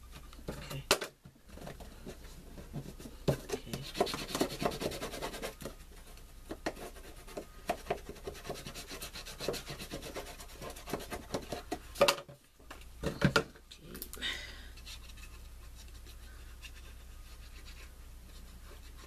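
Cardstock of a handmade paper gift box rubbing and scraping under the hands as its flaps are folded and pressed closed, with a few sharp clicks, the loudest a little past the middle. It quietens over the last few seconds.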